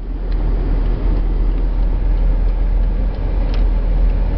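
Steady road and engine noise inside a moving vehicle's cab at highway speed, with a deep, constant rumble.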